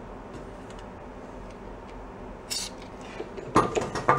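A short hiss of lubricant sprayed from an aerosol can, then two sharp metallic clicks near the end as the steel flywheel puller is handled on the engine.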